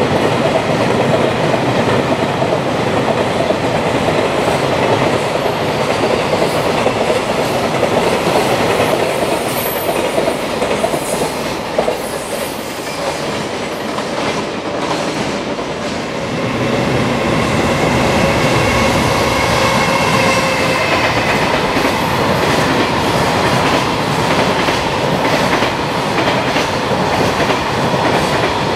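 Container freight trains' wheels clattering over the joints of slab track in a continuous run of clacks. One train passes, the sound eases about halfway through, then a second train on a nearer track brings it up again with a high-pitched wheel squeal.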